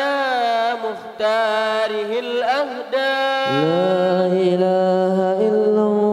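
Melodic Islamic dhikr chanting: a voice sings ornamented, wavering phrases, then from about three and a half seconds in holds one long, steady lower note.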